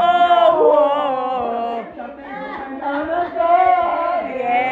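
A woman singing long, held notes with a wavering vibrato into a handheld karaoke microphone, in two phrases with a short break in the middle.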